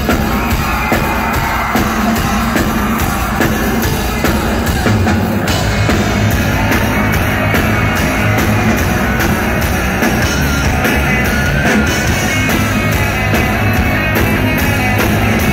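Rock band playing live, electric guitars, bass and drum kit in the instrumental intro of a song. The band grows fuller about five seconds in, with more cymbal and low end.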